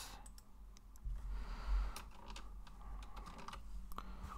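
Computer keyboard keystrokes: a scattered run of separate key clicks over a faint steady low hum.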